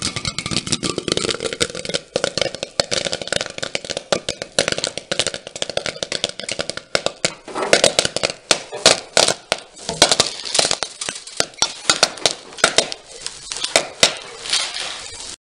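Popcorn popping in a covered frying pan on a hotplate: a dense, rapid crackle of kernels bursting over a steady sizzle. From about halfway through the pops come louder and more spread out.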